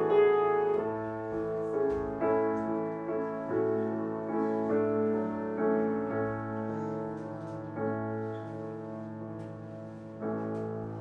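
Slow instrumental keyboard music: held chords changing every second or so, gradually getting quieter.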